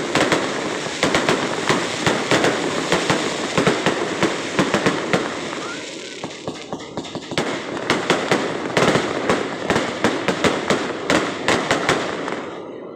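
Fireworks display: a rapid barrage of aerial shell bursts and crackling, several reports a second. It eases briefly about six seconds in, picks up again, and dies away near the end.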